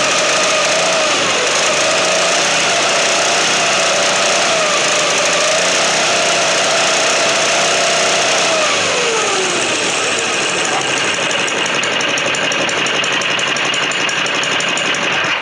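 Baja Doodlebug mini bike's 97cc single-cylinder four-stroke engine running steadily. About nine seconds in its pitch glides down as the revs fall, and it runs on at the lower speed.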